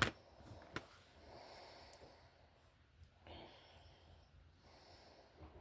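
Faint handling of small motor parts: two light clicks and soft breathing.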